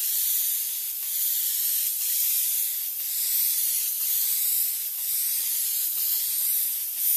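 Airbrush with a siphon-feed bottle spraying with the trigger held fully open, making a steady high-pitched hiss of air and spray that swells and fades slightly.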